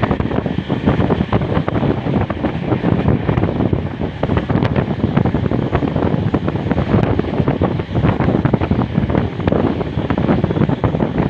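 Wind buffeting the microphone: a loud, steady rushing with rapid crackling gusts.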